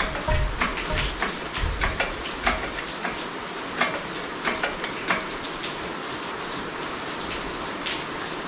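Irregular metallic clicks and light knocks from a VW T5 1.9 TDI engine being worked out of its bay on an engine crane, with a low rumble in the first couple of seconds; the clicking thins out about halfway through.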